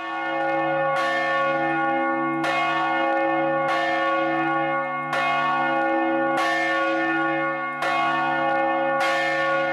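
Church bells tolling, a new stroke about every second and a quarter, each one ringing on into the next.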